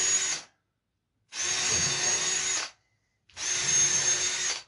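Handheld power drill run against the wooden bench in steady bursts at one pitch. The first burst stops about half a second in, and two more follow, each about a second and a half long, with short silences between them.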